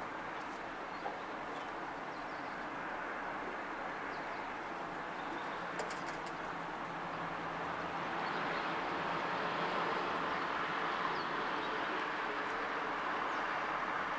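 Steady outdoor background noise heard from a balcony, like distant city traffic, swelling a little louder about halfway through, with a couple of faint clicks.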